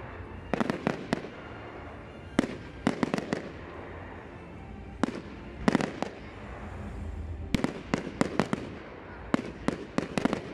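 Aerial display firework shells bursting in clusters of rapid sharp reports, a new group every second or two.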